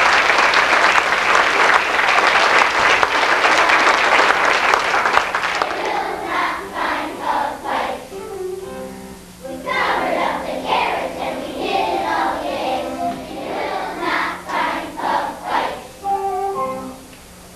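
An audience applauding for about the first five seconds, fading as a chorus of young children begins singing a song together.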